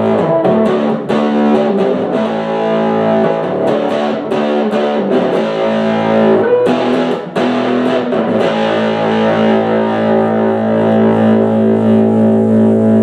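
Guitar played loud through a 1961 Fenton Weill Cornet valve amplifier: a run of strummed chords that ring on. Some of the amp's valves are about 40 years old and due for replacement.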